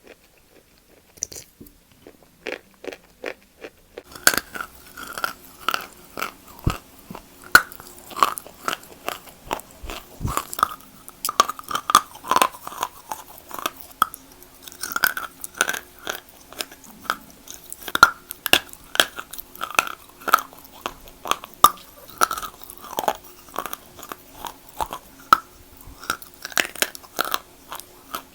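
Close-miked biting and chewing of wet Kiti chalk: crisp crunches several times a second. For the first few seconds they are sparse and quieter, and about four seconds in they become dense and steady.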